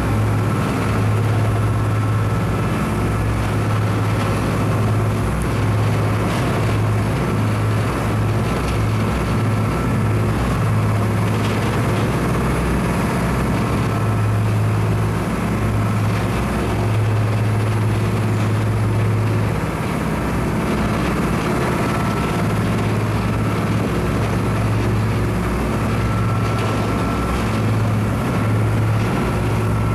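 A boat under way: a steady low engine drone mixed with wind and water noise.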